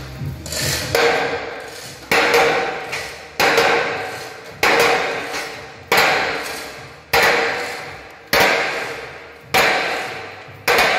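Hammer striking steel plate blades welded onto a pipe shaft: about nine steady blows, roughly one every second and a quarter, each with a metallic ring that fades before the next. The first blow is weaker than the rest.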